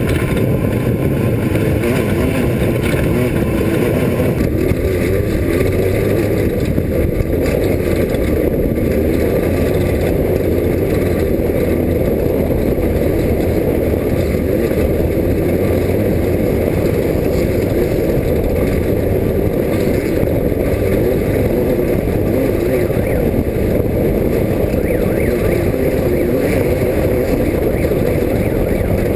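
Off-road race car engine running hard at a steady, loud level, mixed with wind and rumble from driving over dirt.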